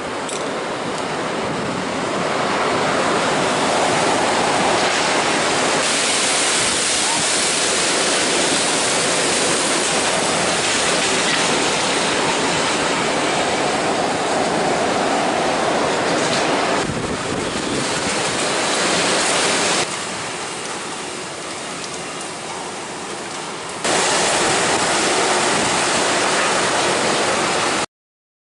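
Typhoon-force wind rushing through the trees as a continuous, loud, noisy rush. It falls quieter for a few seconds about two-thirds of the way through, comes back at full strength, then stops abruptly near the end.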